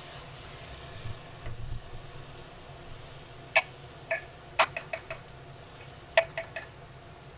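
Red spatula stirring dalia and vegetables in a pressure cooker. Past the middle come about nine sharp, ringing taps of the spatula on the metal cooker, in two quick clusters.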